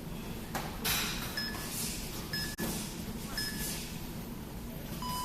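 Electronic round timer beeping: three short beeps about a second apart, then a longer, lower beep near the end, the countdown signalling a change of round. Bursts of scuffling noise can be heard between the beeps.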